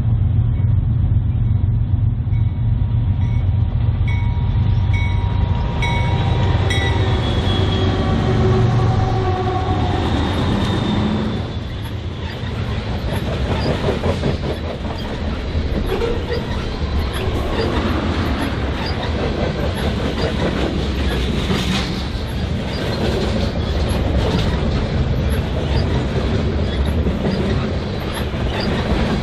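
Diesel locomotives of a freight train rumbling as they come up and pass, for about the first ten seconds. Then the freight cars roll by, their wheels clicking and clanking over the rail joints in a dense steady clatter.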